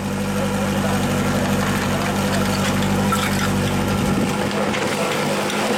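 Portable fire pump's engine running steadily at idle.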